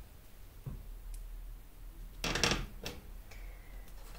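Quiet handling of a wooden rubber stamp on paper at a table: a few faint clicks, then one brief scuffing rustle about two seconds in as the stamp is worked onto the page.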